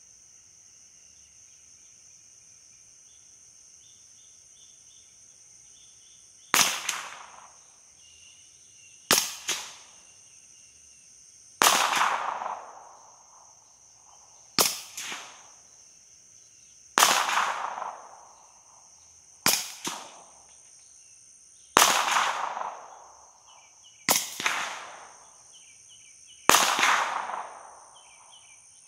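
Nine suppressed shots from a Smith & Wesson M&P9 9mm pistol fitted with an SWR Octane 45 HD suppressor, fired toward the microphone from a distance, one every two to three seconds starting about six seconds in. The rounds alternate between 115-grain supersonic loads, which carry a sonic crack, and 147-grain subsonic loads, which don't. A steady high insect drone runs underneath.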